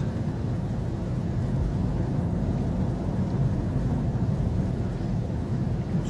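Steady low rumble of a car heard from inside the cabin, its engine and tyres running slowly along a snow-covered road.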